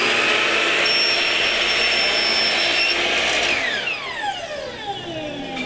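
12-inch chop saw (mitre saw) motor and blade running at full speed, then switched off about three and a half seconds in and winding down, its pitch falling steadily.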